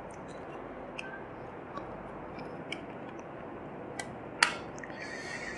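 Light plastic clicks and taps as the parts of a Raspberry Pi 3 case are fitted together around the board. One sharp snap about four and a half seconds in, as a side panel clicks into place, and a short rub of hands on the case near the end, over a steady hiss.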